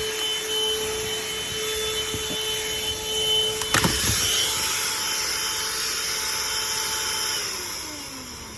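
Worx handheld car vacuum running with a steady whine and a knock about four seconds in; near the end it is switched off and the whine falls in pitch as the motor spins down.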